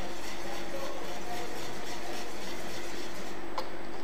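Hand wire whisk beating pandan batter in a stainless-steel mixing bowl as flour is worked in: a quick, even run of soft scraping strokes, with one sharper clink near the end.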